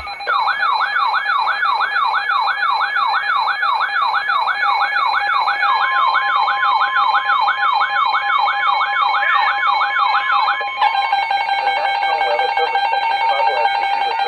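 Electronic weather-alert siren: a fast rising-and-falling wail of about two and a half cycles a second over steady, rapidly pulsing alert tones. About halfway through, another steady tone joins. About eleven seconds in, the wail stops and only the steady tones remain.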